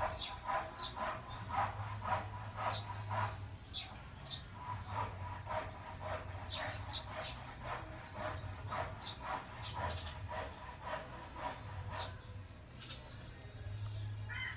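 Birds chirping again and again in short falling notes, with a dog yapping in the background over a low steady hum.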